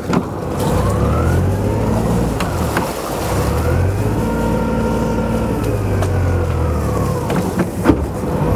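Sailing yacht's inboard diesel engine revved up in gear to throw a hard burst of prop wash against the turned rudder, kicking the stern sideways. The revs climb about half a second in, hold steady, and drop back near the end, with a few light clicks.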